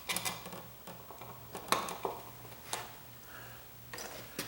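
A few separate light clicks and taps as a wall light switch and its wires are handled and pushed into a plastic electrical box.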